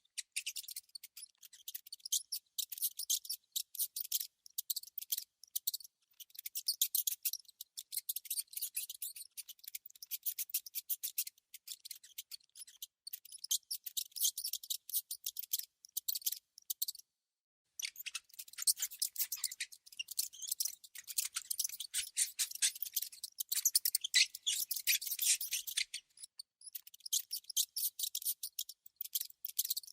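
A rodent (mouse or rat) making rapid, high-pitched clicking sounds in bursts, with a brief pause a little past halfway.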